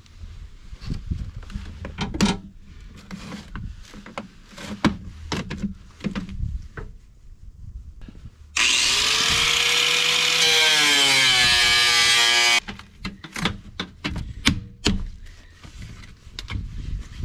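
Angle grinder cutting plastic trim: the motor runs loud and steady for about four seconds, starting about eight and a half seconds in, its pitch sagging as it bites into the plastic, then cuts off sharply. Before and after it come scattered knocks, cracks and rubbing as the plastic trim is worked, cracked and ripped off by hand.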